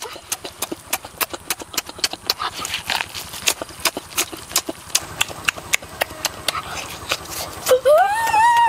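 Wet chewing and lip-smacking as roast chicken is eaten: sharp, irregular clicks several times a second. Near the end, a drawn-out vocal sound that rises and then falls in pitch.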